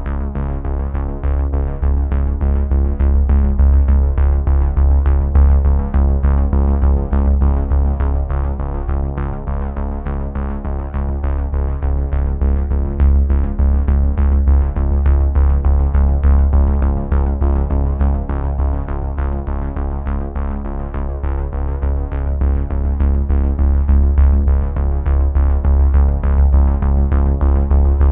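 Electronic background music: held synthesizer chords over a heavy bass with a steady pulsing beat.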